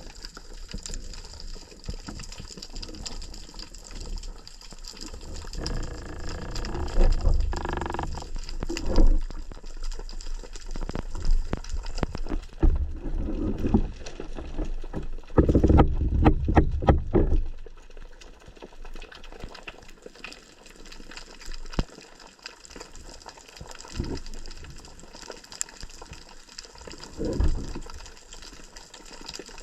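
Water sloshing and bubbling, swelling louder twice, with a run of short clicks and knocks in the middle.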